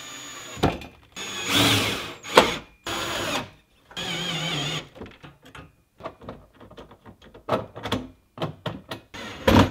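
Cordless drill driving screws in several short runs, its motor whine steady in some runs and wavering in pitch in another, with a sharp knock among them. Then a string of short clicks and knocks as a hang-rail piece is fitted onto the wall standards by hand.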